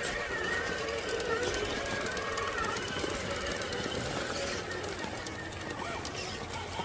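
Radio-controlled rock crawler's electric motor and gears whining, the pitch wavering up and down with the throttle.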